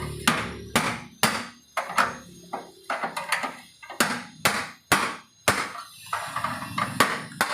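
Repeated hammer blows on metal, about two a second and unevenly spaced, typical of beating out a dented car body panel.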